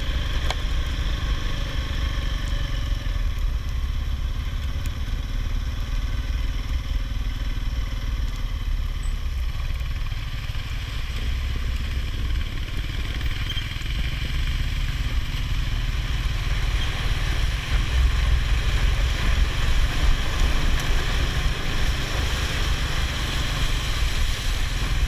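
ATV engine running steadily while riding, growing somewhat louder a little past the middle.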